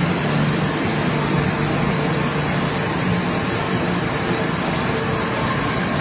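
Printing press running: a steady mechanical noise with a low hum.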